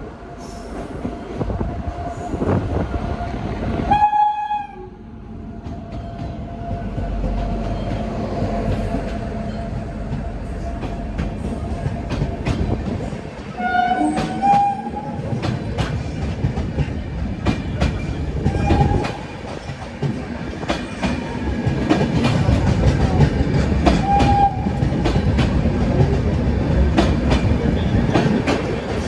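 Indian Railways WAP7 electric locomotive and its train running past, sounding short horn toots several times, about every five to ten seconds. From about halfway, the wheels click rapidly over the rail joints, and the train grows louder in the last third.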